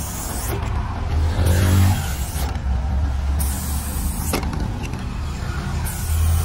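Aerosol spray paint can hissing in short bursts as paint is sprayed onto a wall, over a steady low rumble.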